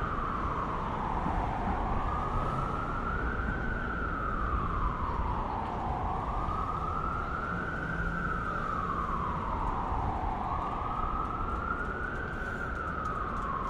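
An emergency vehicle's siren on the wail setting, rising and falling slowly, about three full cycles, over a steady rumble of street traffic.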